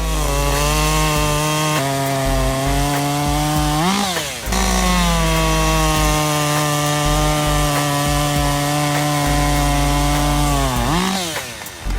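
Gasoline chainsaw running at a steady high speed while cutting wood. Its pitch rises briefly about four seconds in, and again near the end as it fades.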